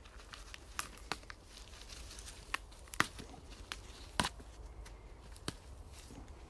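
Plant material being pulled and handled during weeding: a faint rustle of leaves and stems broken by about half a dozen irregular sharp snaps.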